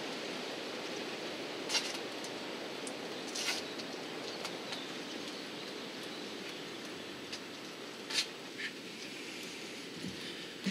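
Steady outdoor hiss with a few sharp, light clicks as the cut glass plug and tape are worked free of the freshly drilled hole in the aquarium glass; the drill is not running.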